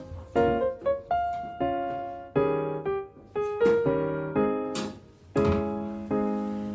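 Solo piano playing a slow run of chords, each struck and left to ring and fade, with the last chord dying away at the end.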